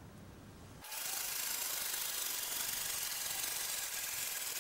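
Milling machine table being hand-cranked along its leadscrew, heard sped up ten times: a steady, high-pitched rushing whir that starts about a second in.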